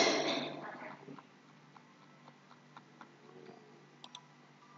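A loud, sudden burst of noise right at the start that fades away over about a second, followed by faint ticks and a sharp double click about four seconds in, typical of a computer mouse being clicked.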